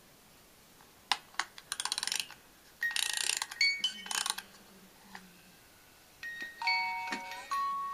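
Clicks, a quick run of ratcheting clicks and scraping as the music box in the base of an antique stoneware beer stein is handled and wound. About six seconds in, the music box starts plucking out a tinkling tune.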